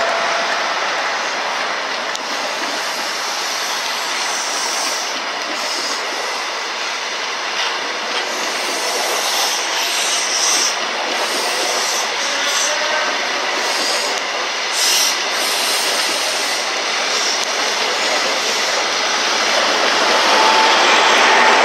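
High Speed Train led by a Class 43 diesel power car rolling past at low speed over pointwork: a steady rumble and hiss of wheels on rail with some thin wheel squeal, getting a little louder near the end.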